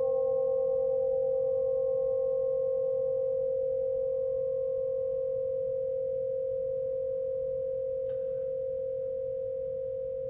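A single long ringing tone, steady in pitch with fainter higher overtones, slowly fading away. A faint knock comes about eight seconds in.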